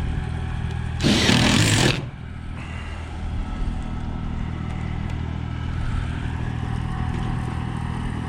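An engine running steadily with a low drone, and a loud rush of noise lasting about a second, about a second in.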